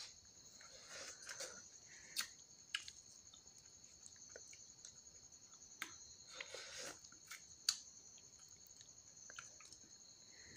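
Steady high chirring of crickets, with a man's chewing and mouth sounds as he eats, and a few sharp clicks, the loudest about two seconds in and near eight seconds in.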